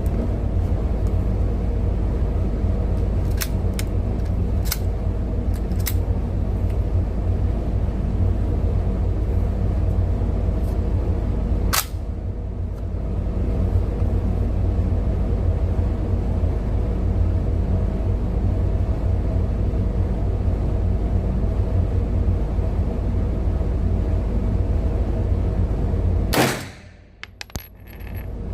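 Car engine idling, a steady low rumble, with a few light clicks and one sharper click about twelve seconds in. The sound drops away briefly near the end.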